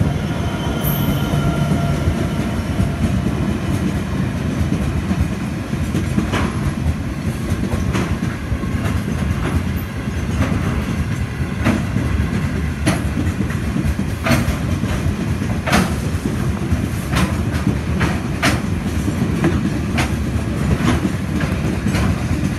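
Freight train rolling past close by: the 82 class diesel locomotive's engine tones fade in the first second or two as it goes by, then loaded ballast hopper wagons rumble past with sharp clickety-clack of the wheels over rail joints about every second.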